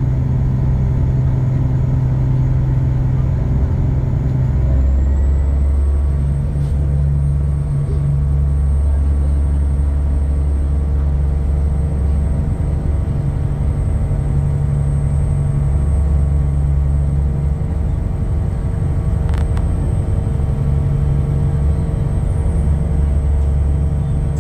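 Engines of a high-speed passenger boat droning steadily while cruising at speed, heard from on board: a deep, a bit noisy hum with steady overtones that swells and eases slightly every few seconds.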